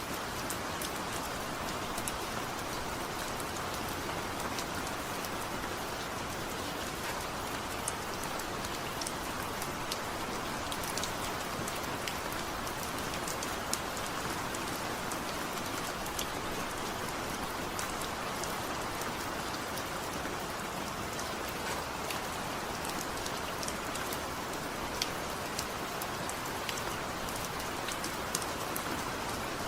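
Heavy rain falling steadily: a constant hiss of downpour with many sharp little drop ticks scattered through it, and no thunder.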